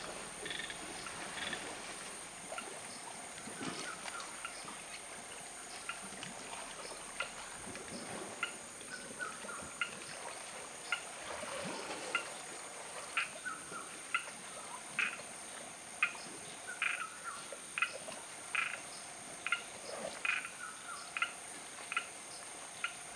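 Steady chorus of insects, with short sharp animal calls repeating about once or twice a second, coming more often in the second half.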